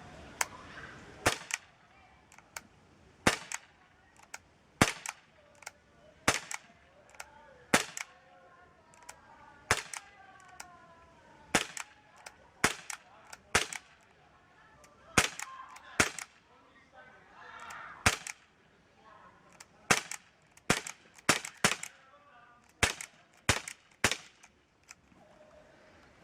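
Umarex Walther P38 CO2 air pistol fired repeatedly: about twenty sharp cracks at uneven intervals, several coming in quick succession near the end.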